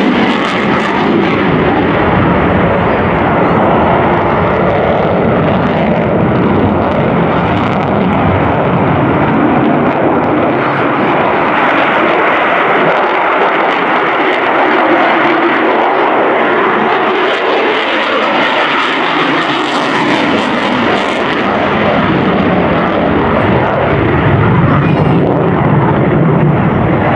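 F-22 Raptor's twin Pratt & Whitney F119 turbofan engines at high power during display manoeuvres overhead: loud, continuous jet noise that swells and shifts in tone as the aircraft turns.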